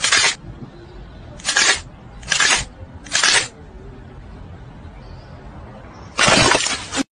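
Punch and slap sound effects for a staged fight: four short, sharp hits in the first three and a half seconds, then a longer hit near the end.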